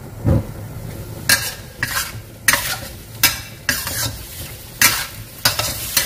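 Metal spatula scraping and turning squid and celery in a stainless steel wok, about ten quick strokes, over a steady sizzle of stir-frying.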